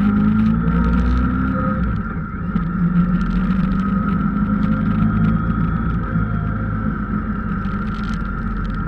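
A vehicle's engine running steadily while driving, with a low hum and a continuous rush of road noise.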